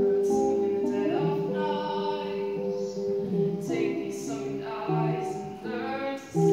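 A solo voice singing a slow song over held guitar chords.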